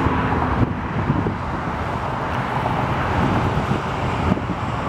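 Steady rumble of an Emirates Airbus A380's Engine Alliance GP7270 jet engines at taxi power as the aircraft taxis close by.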